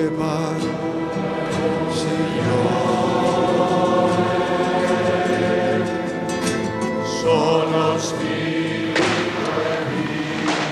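A choir singing slow, held chords, the harmony shifting a few times.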